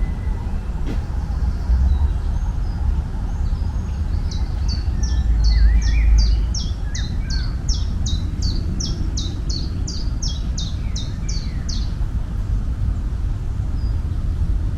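A songbird sings a long series of about twenty high, down-slurred notes, roughly three a second, with a few lower chirps mixed in, over a steady low rumble.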